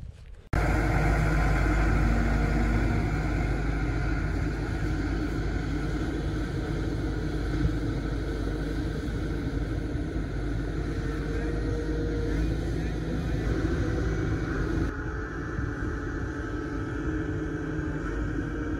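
Diesel engine of a wheel loader running steadily, a loud, even low drone.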